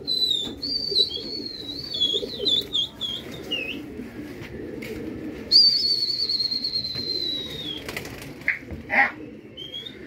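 High, clear whistles: a warbling, wavering run for the first few seconds, then one long whistle that falls slightly in pitch, and a short rising whistle near the end. A low background din runs underneath, with a few sharp claps shortly before the end.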